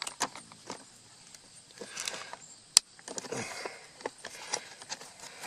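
Scattered plastic clicks and rustling from handling a car's power seat switch and its wiring connector during fitting, with one sharp click a little under three seconds in.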